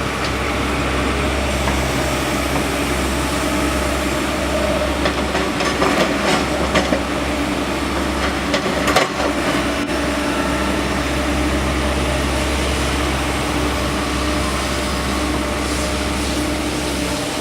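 Excavator diesel engine running steadily under hydraulic load, with a few sharp knocks and clanks about five to nine seconds in as the sorting grab handles boulders.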